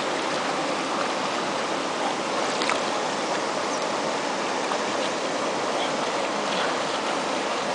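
A waterfall's water rushing in a steady, unbroken roar of white noise.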